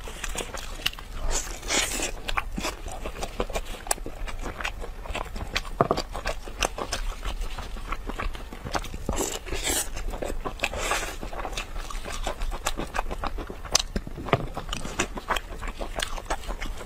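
Close-miked eating sounds: a person tearing at and chewing a braised rack of ribs, a dense run of wet smacks and short crunchy clicks.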